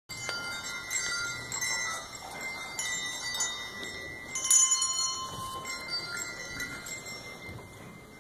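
A children's handbell choir ringing small handbells: single notes struck one after another and left to ring, overlapping into a chiming chord. The loudest strike comes about four and a half seconds in, and the ringing fades toward the end.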